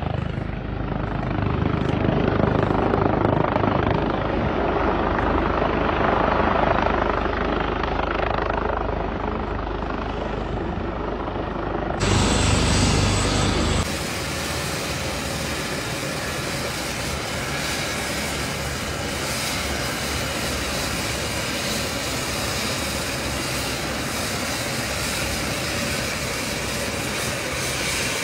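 AgustaWestland AW139 twin-turbine helicopter, its rotor beating heavily as it flies low and comes in to land. About halfway through the sound changes abruptly to a steadier, thinner whooshing hiss of the machine running on the ground.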